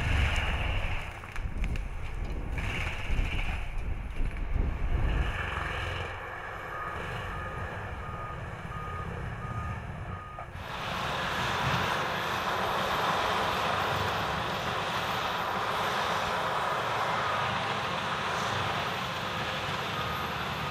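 Vermeer FT300 forestry tractor at work: a low engine rumble with a backup alarm beeping in a steady row of short beeps. About halfway through, the sound changes suddenly to a louder, steady grinding as the spinning mulcher drum shreds brush.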